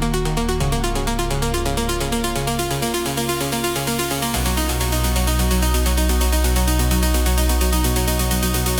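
Progressive house track generated with Suno AI: layered synths over a steady driving beat at 126 BPM. The bass moves to a new note about half a second in, then drops to a deep, loud bass note around four seconds in.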